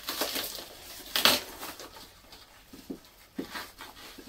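Plastic packaging wrap crinkling and crackling as an axe blade slices it open, with one loud sharp rip about a second in and smaller crackles later.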